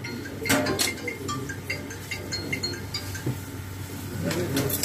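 Knocks and clinks of fish and a metal scale tray handled on a stainless-steel table: two sharp knocks about half a second in, another near the end, and scattered light clinks in between, over low crowd murmur.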